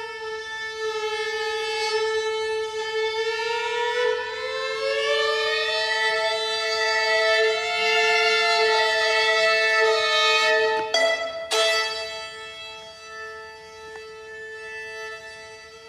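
Bowed string instrument, violin-like, playing long held notes together: the lowest note stays steady while an upper note slides slowly upward about four seconds in and then holds. There is a brief scraping noise about eleven seconds in, after which the playing grows quieter.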